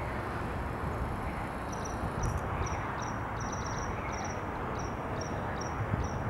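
Open-air background: a steady rushing noise, with short high chirps repeating about two to three times a second, starting a couple of seconds in.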